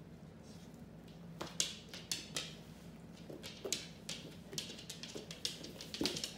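Irregular light clicks and taps on a wooden floor as a large dog and a small child scuffle and play. The taps come in quick flurries from about a second and a half in.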